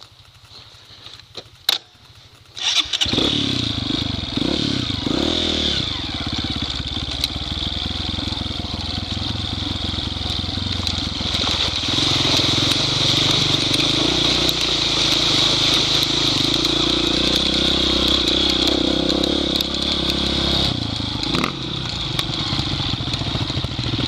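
Dirt-bike engine starting about three seconds in, revving up and down a few times, then running steadily under way.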